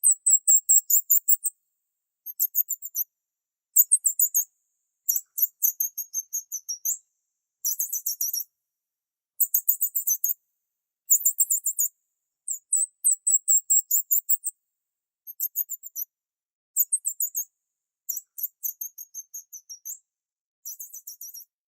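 Bird chirping: runs of rapid, very high-pitched chirps, each lasting about a second, repeated over and over with brief silent gaps between them.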